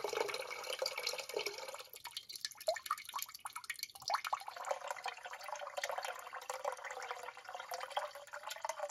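Water running in a thin stream from a Weil-McLain HE2 boiler's brass drain valve and splashing into a partly filled plastic tub as the boiler is drained. The splashing drops away for a while about two seconds in, then returns.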